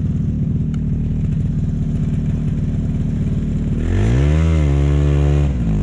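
Yamaha Bravo 250cc two-stroke snowmobile engine idling unevenly, then revved about four seconds in, its pitch rising and falling back, as the sled is worked free of deep snow.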